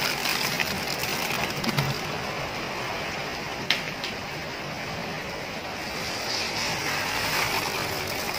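Heavy rain pouring in a steady hiss, with one sharp click just before four seconds in.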